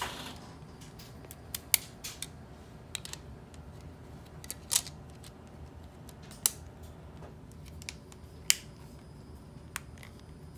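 Hard plastic shell halves of an OtterBox Defender phone case clicking as they are pressed and snapped together round a phone, about eight sharp, separate clicks at uneven intervals.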